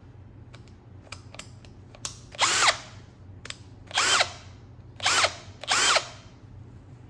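Bosch 18-volt brushless cordless drill squeezed in four short trigger pulls, spinning with no load, its motor whine rising and falling with each pull. A few light handling clicks come before the first run.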